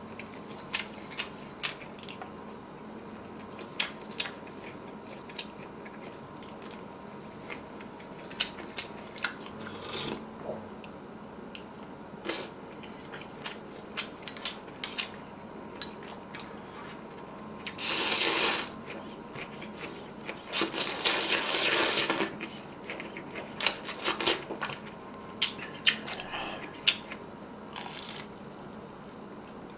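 Close-miked mukbang eating sounds: spoon and chopsticks clicking against bowls and small mouth sounds, with two long, loud slurps of pho about two-thirds of the way through, then a run of crisp bites into fried shrimp near the end.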